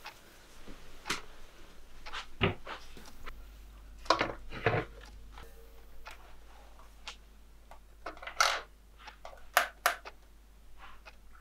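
Scattered sharp knocks, clicks and rustles of small objects being handled in a small room, about a dozen separate sounds, over a steady low hum.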